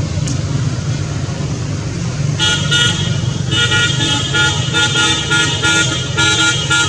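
A steady low rumble of engine or traffic noise, with a vehicle horn beginning about two and a half seconds in and sounding in a rapid run of short toots.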